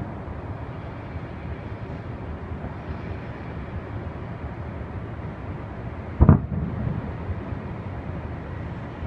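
A single distant firework burst booms about six seconds in, trailing off in a short rumble, over a steady low background rumble.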